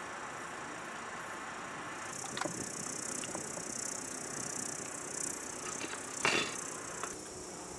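Hot oil in a wide frying pan sizzling as skewers of raw minced-lamb kebab are laid in, the hiss growing louder about two seconds in. A few sharp clicks of the metal skewers against the pan, the loudest about six seconds in.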